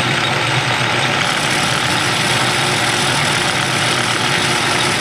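Metal lathe running steadily with an even motor-and-gear hum while it takes a spring pass on a cast iron workpiece, a light finishing cut at the same setting that takes off only a little fuzz.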